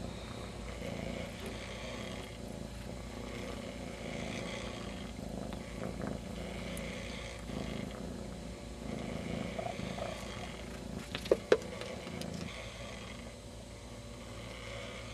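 Kitten purring steadily, the purr swelling and fading with each breath. About eleven seconds in, two short sharp clicks in quick succession stand out as the loudest sounds.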